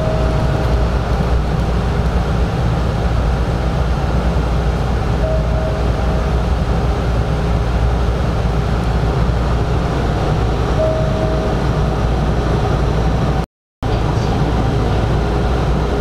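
Hanshin 5500 series commuter train giving a steady low rumble, with a short beep repeating about every five and a half seconds. The sound drops out for a moment about thirteen and a half seconds in.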